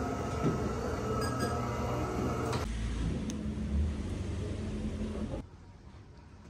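Indoor room noise with a steady hum, cut sharply to a low steady rumble for about three seconds, then cut to quiet outdoor ambience about a second before the end.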